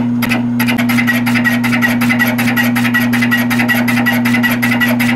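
Milling machine fly cutter taking a roughing cut across a cast-iron vise base: a rapid, even ticking as the single cutter strikes the surface on each turn, over the steady hum of the machine's motor. The cut gets fuller and denser about half a second in.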